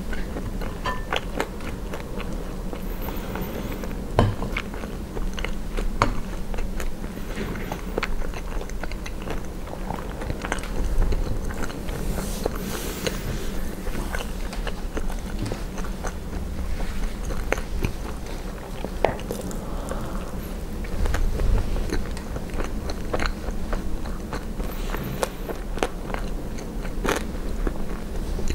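Close-miked chewing and biting of poutine (French fries, cheese curds and gravy), with many small sharp mouth clicks throughout.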